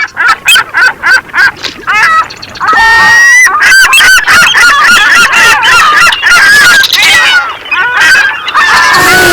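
A flock of geese honking, dubbed in as a sound effect. Separate honks come at first, then a dense overlapping chorus of honks from about three seconds in.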